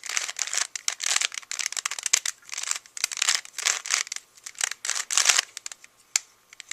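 A 3x3 Rubik's cube being turned quickly through a last-layer edge-cycling algorithm: rapid, uneven bursts of plastic layers clicking and scraping against each other, thinning out near the end.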